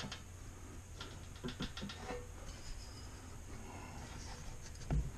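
Faint clicks and scrapes of a V-belt and pulleys being handled in the open belt housing of a ZJ4110 bench drill press, as the belt is worked onto the pulleys against its tension spring. A dull thump comes near the end.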